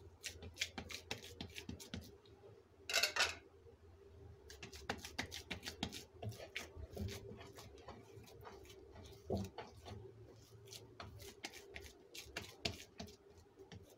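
Oiled hands patting and smoothing over a ball of kneaded naan dough: a run of soft, sticky slaps and small clicks, with one louder rub about three seconds in.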